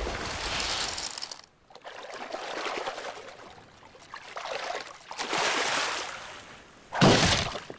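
Cartoon sound effects of molten lava hissing as it runs into sea water, in three swelling waves, then a louder, short splash near the end.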